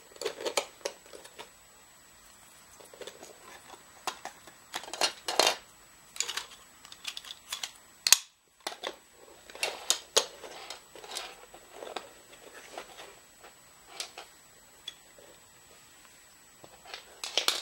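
Hard PLA plastic parts of a 3D-printed toy crossbow being handled and fitted together: irregular clicks, taps and light knocks of plastic pieces, with faint handling noise between them.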